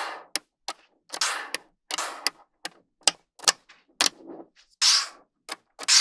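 Small magnetic balls clicking and snapping together at an irregular pace, with short rattling scrapes in between; the loudest scrape comes about five seconds in.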